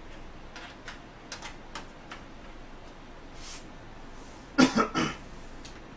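A few light clicks and taps from hands at an open desktop PC, then, about four and a half seconds in, a person coughs three times in quick succession. The coughs are the loudest sound.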